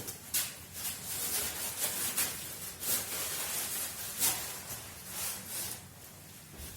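Pneumatic paint spray gun hissing in a series of short, uneven spraying passes, over a faint low hum.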